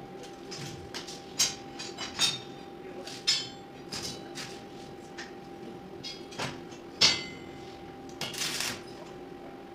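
Steel bars clinking and knocking against each other and the concrete floor as a bar is set into a welded iron window-grill frame, the sharpest knock about seven seconds in. A faint steady hum runs underneath.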